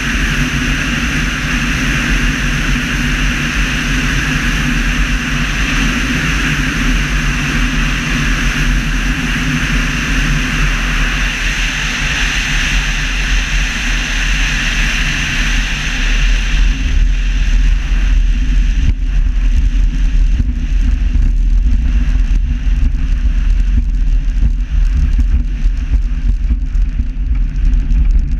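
Steady rush of airflow over an Evektor EV-97 Eurostar microlight gliding with its engine stopped after an engine failure, so no engine is heard. About seventeen seconds in, the wheels touch down. The rush gives way to a louder rumble with irregular bumps and rattles as the airframe rolls along a grass runway.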